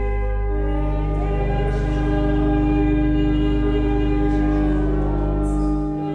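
Congregational hymn singing with accompaniment, holding long sustained chords over a steady deep bass note. The chord changes about half a second in, and the bass drops away near the end.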